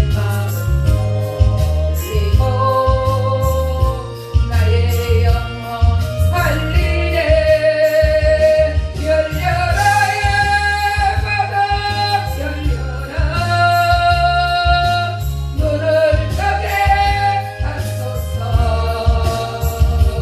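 A gospel song sung with long held notes over an accompaniment that has a steady bass line and a regular beat.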